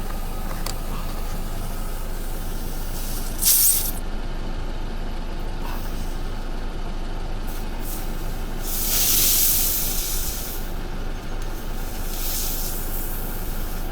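Air hissing out of a punctured car tyre that is still leaking after a plug repair: a brief hiss about three seconds in, a longer one around nine seconds and another near the end, over a steady low rumble.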